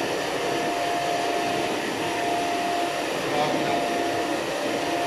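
Gas burners of a commercial double-burner Chinese wok range firing, a steady rushing noise with a constant thin whine over it.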